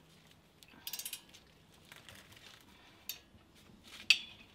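Faint metallic clicks and clinks of brake hardware being handled by hand as the caliper bracket bolts are lined up and started: a short cluster about a second in, and single sharper clicks near three and four seconds in.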